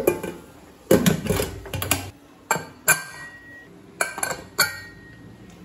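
Stainless steel pressure cooker being closed: a series of sharp metal clinks and knocks as the lid is fitted and the whistle weight is set on the vent.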